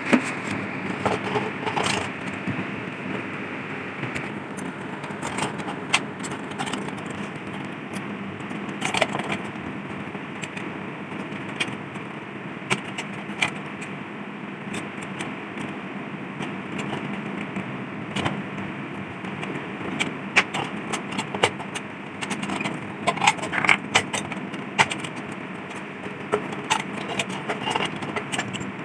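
Scattered light metallic clicks and clinks, thicker towards the end, over a steady rushing background noise. These are the metal parts of an old lantern being handled.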